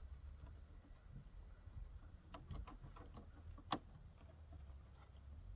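Fillet knife trimming the rib bones out of a crappie fillet on a table: a few faint clicks and scrapes, with one sharper click a little past halfway.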